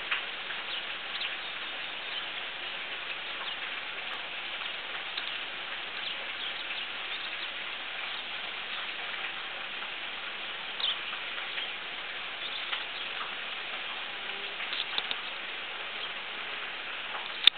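Steady outdoor hiss with scattered short, high chirps from swallows, a few coming in quick clusters, and a single sharp tap near the end.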